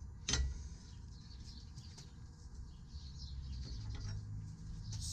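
A single sharp metal clink about half a second in as a steel part is set in place for welding, followed by faint low rumble and light handling ticks.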